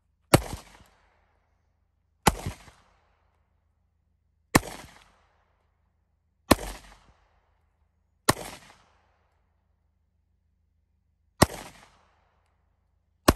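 Glock 22 .40 S&W pistol fired in single shots, seven in all, about two seconds apart with a longer pause before the sixth; each crack trails off in a short echo.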